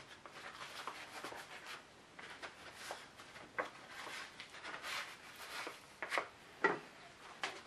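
Leather work gloves being pulled on: faint rubbing and rustling of the gloves on the hands, with a few light clicks.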